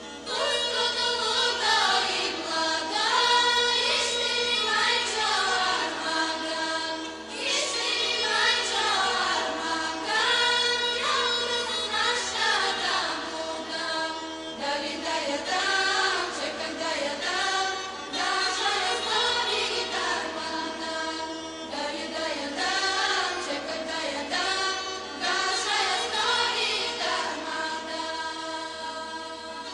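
Background music: voices singing a melody over a steady held drone, fading a little near the end.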